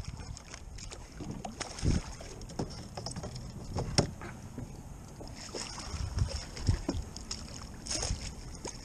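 Handling noise aboard a kayak: irregular knocks, clicks and a few heavier low thumps of gear and hands against the hull.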